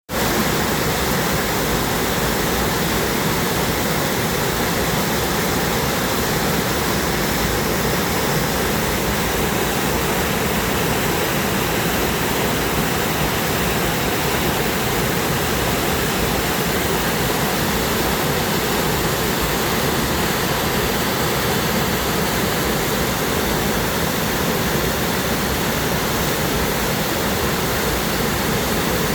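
Waterfall pouring over granite in a steady, loud, unbroken rush of water.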